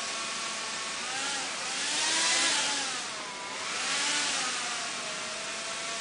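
Quanser 3-DOF lab helicopter's twin motor-driven propellers whirring as the controller turns it 45 degrees. Their pitch and loudness rise to a peak about two seconds in, dip, rise again near the fourth second, then settle to a steady hum.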